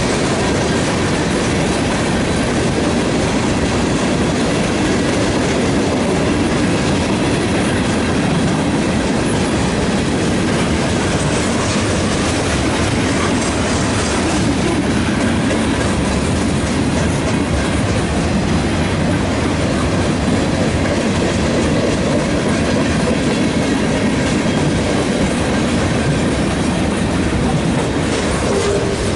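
Freight train cars rolling steadily past at close range: the continuous, loud rumble and clatter of steel wheels on the rails.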